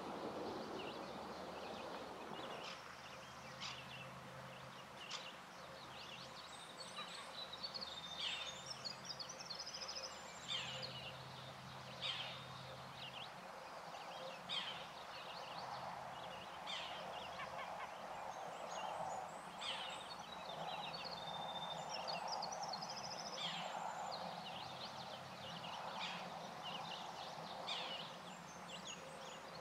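Wild birds singing and calling in a morning forest by a lake: many short chirps and trills repeating throughout, over a faint steady background hum.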